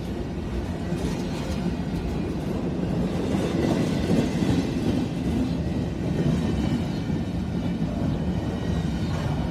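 CSX freight train of empty intermodal well cars rolling slowly past on street-running track: a steady rumble of steel wheels on rail, with some clickety-clack of the cars.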